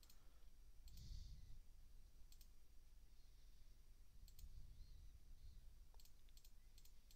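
Faint computer mouse clicks, several of them in quick pairs spread across a few seconds, over low room hum.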